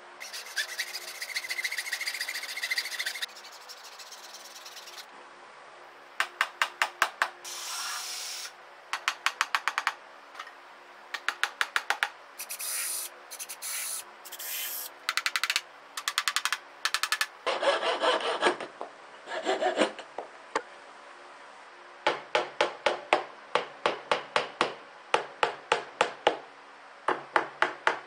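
Woodworking on a 3/8-inch square wood dowel strip: a cordless drill whines for a few seconds at the start and runs again in rougher stretches about two-thirds through. Between these come repeated groups of quick, sharp taps, about five or six a second, as fasteners are driven into the wood.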